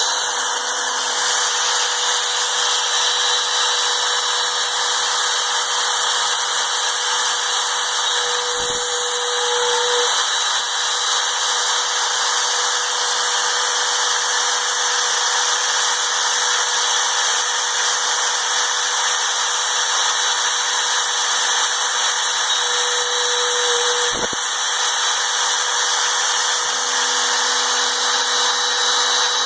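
Home-built CNC mill's spindle running steadily at speed, a loud hiss with a steady whine, as a 1/8-inch end mill plunges holes into a metal plate. Two short sharp clicks, about nine and twenty-four seconds in.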